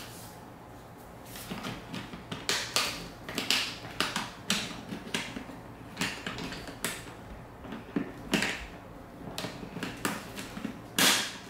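Hard plastic clicks, scrapes and light knocks as a Ruroc Atlas 2.0 motorcycle helmet's visor mount is twisted and snapped into place on the shell, with one louder snap about a second before the end.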